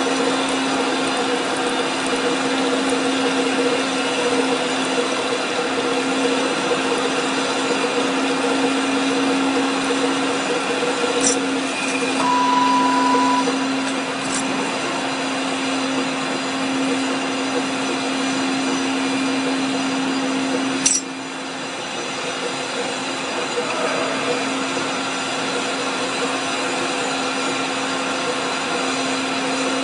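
A lathe running with a steady hum, broken by a few sharp clicks and a brief beep-like tone about twelve seconds in.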